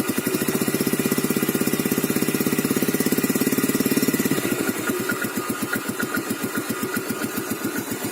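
Yamaha Vega ZR's single-cylinder four-stroke engine running through its exhaust, heard close up. From about half a second in to about four seconds in it speeds up and runs louder under a light throttle, then drops back to an even idle.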